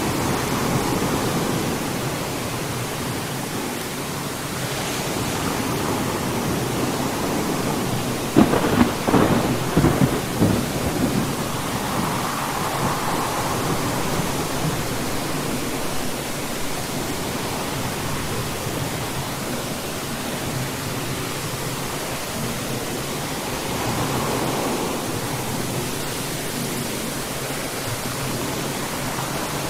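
Steady rain falling in a thunderstorm, with a sharp, crackling thunderclap about eight seconds in that lasts a couple of seconds.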